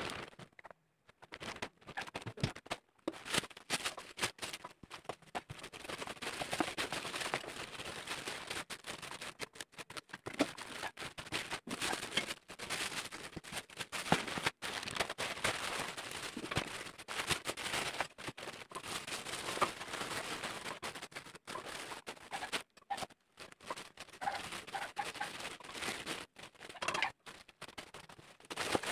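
Clear plastic packaging crinkling and rustling as plastic-wrapped bags are handled, an irregular run of small crackles.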